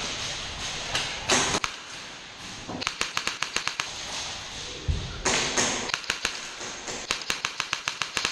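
Airsoft guns firing in rapid bursts of sharp clicks, about nine or ten shots a second, with a longer burst near the end. A low thud comes in the middle.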